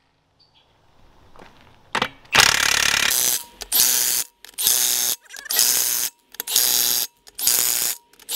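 Cordless Milwaukee impact wrench hammering nuts down on a two-piece split-rim military truck wheel, tightening the halves against the O-ring. After about two quiet seconds it fires in six short bursts of under a second each, about one a second, one for each nut.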